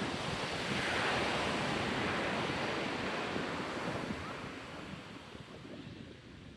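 Ocean surf breaking and washing up a sand beach, with wind buffeting the microphone. The wash swells about a second in, then fades away toward the end.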